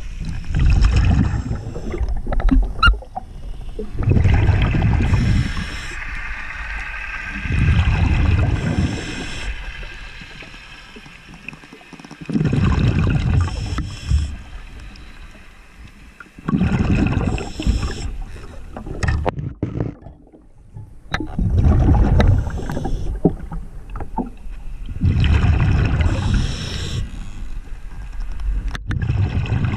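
Underwater recording: surges of rushing water noise against the camera come and go about every four seconds, with quieter gaps between them.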